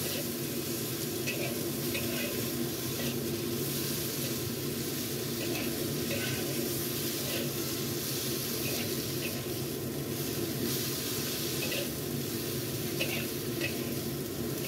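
Sliced bitter melon sizzling steadily in a wok with a little water as a metal spatula stirs it, with short scrapes of the spatula against the pan now and then.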